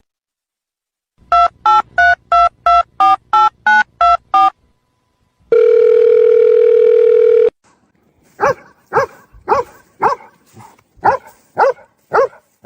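Telephone keypad dialing: about ten short two-tone beeps in quick succession, then a steady phone tone for about two seconds. After that, a dog barks in short, evenly spaced barks about twice a second.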